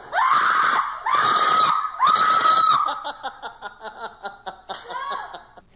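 A woman screaming three times in quick succession, loud and high, startled by a scare, then a run of short quick cries.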